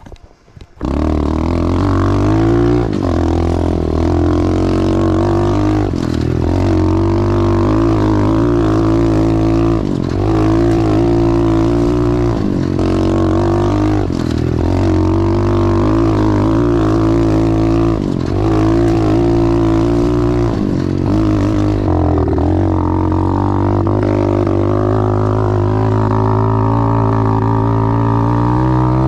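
Small single-cylinder pit bike engine being ridden hard, its pitch dipping and climbing again every second or two as the throttle is rolled off and back on.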